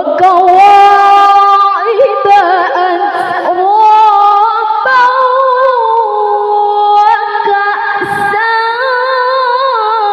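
A woman reciting the Qur'an in the melodic, high-pitched tilawah style of a qari'ah, amplified through a handheld microphone. She holds long notes with wavering ornaments, taking only brief breaths between phrases.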